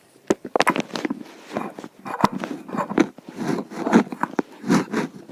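Handling noise on the camera's microphone: irregular rustling, scraping and sharp clicks as the camera is moved about and set in place.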